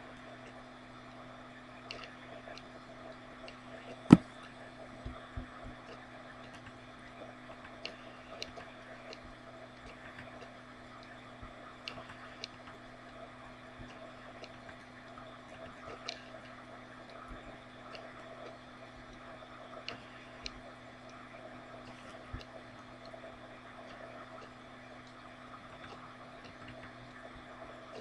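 A steady hum made of several constant tones, with scattered faint clicks and one sharp click about four seconds in.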